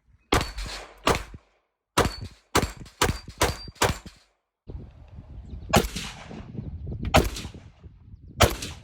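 Gunshots fired one at a time: seven quick single shots in about four seconds, then three more spaced more slowly.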